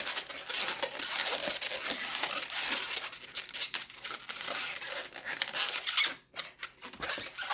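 Latex modelling balloons squeaking and rubbing against each other as an orange 160 balloon is twisted and wrapped around a green balloon carrot top. A dense run of rubbery squeaks and crackles that drops away briefly about six seconds in.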